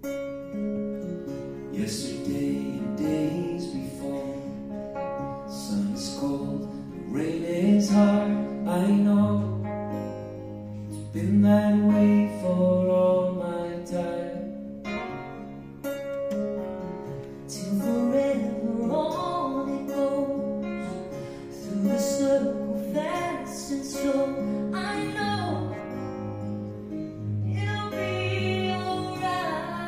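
Live acoustic music: two acoustic guitars playing with singing voices in phrases over them, the singing strongest in the middle and last third.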